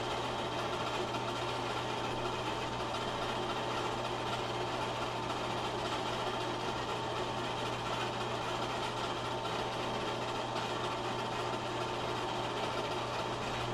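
8mm film projector running: a steady motor hum and whir with a constant low drone.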